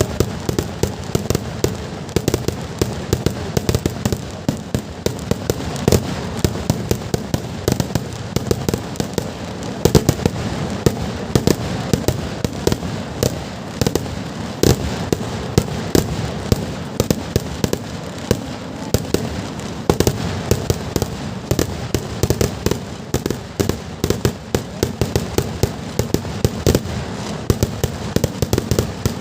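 Kerala temple-festival fireworks (vedikkettu): a dense, unbroken barrage of firecracker bangs, many each second, over a continuous rumble.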